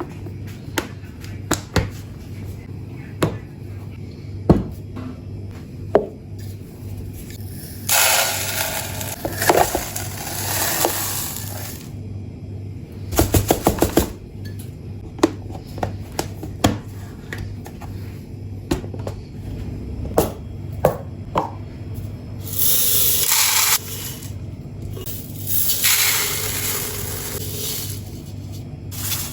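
Kitchen storage containers, jars and lids being handled: a string of sharp clicks and knocks, a quick run of about eight clicks, and three spells of dry hissing rustle lasting a second or more, over a steady low hum.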